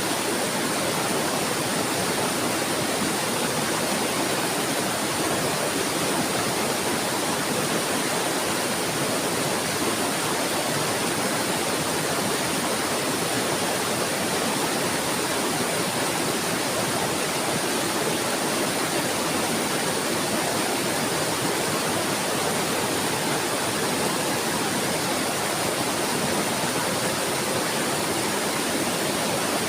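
Steady flowing water, a continuous even rush and babble with no change.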